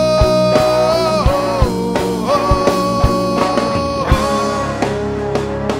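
Rock band playing live: drum kit hits and guitars under a long held melody note that slides to a new pitch a few times.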